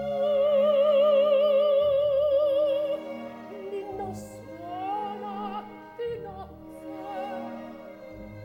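Operatic coloratura soprano singing with an orchestra: she holds a loud, long high note with wide vibrato for about three seconds, then goes on in softer phrases with sliding pitch over sustained strings.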